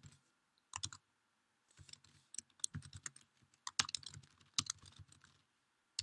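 Computer keyboard being typed on: quiet runs of quick keystrokes with short pauses between them, a brief run just under a second in, then denser typing from about two seconds in.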